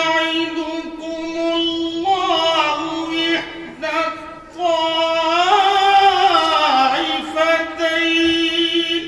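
A man reciting the Quran in the melodic tajweed (qirat) style, drawing out a long phrase on a high steady note with ornamented pitch turns. There is a short break for breath about four seconds in.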